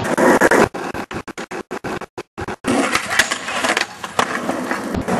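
Skateboard wheels rolling over rough asphalt and the board grinding along a low, flat metal rail, with knocks from the board. About a second in, the sound breaks up into a string of short gaps before the rolling resumes.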